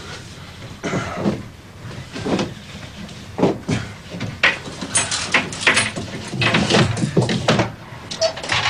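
Someone rummaging through a built-in wardrobe: irregular knocks, clatter and rustling as clothes and objects are pushed about and pulled from the shelves. The handling gets busier about halfway through.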